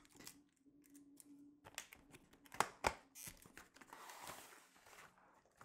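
Quiet handling of a cardboard kit box as it is opened: scattered light taps and clicks as the flaps and a taped tab are worked loose, and a soft scraping rasp about four seconds in as the card sleeve slides.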